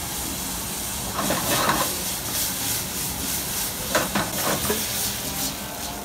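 A steady hiss with a few short clinks and clatters of dishes, about a second and a half in and again around four seconds in.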